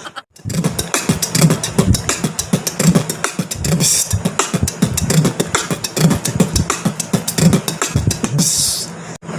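Beatboxing: a fast run of mouth-made kick-drum thumps and clicks, ending in a hissing sound about a second before the end that cuts off sharply.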